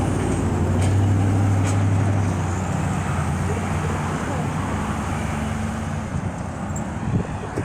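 Road traffic passing on a town street: a deep engine drone fades after about two seconds, then cars drive by over steady tyre and road noise.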